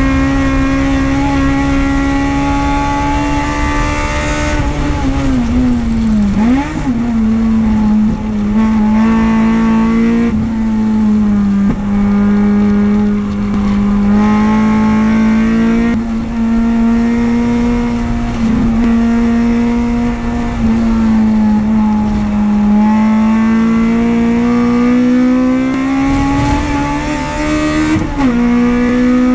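Honda race car's engine heard from inside the cockpit on track. It runs hard, then drops to a lower note about five seconds in as the car slows and changes down, with a quick blip. It holds a steady pitch through a corner, then climbs steadily under acceleration and shifts up near the end.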